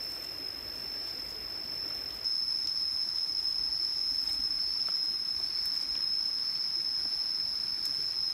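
Insects droning in one steady, high-pitched tone that gets louder about two seconds in, with a faint low rustling underneath.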